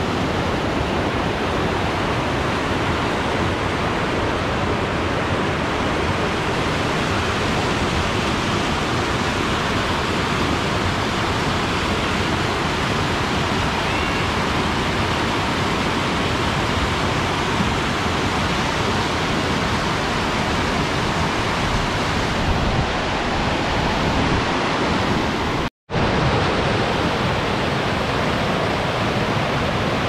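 Fast mountain stream rushing in white water over rocks: a steady, loud rush. It cuts out for a split second about three-quarters of the way through, then the rush comes straight back.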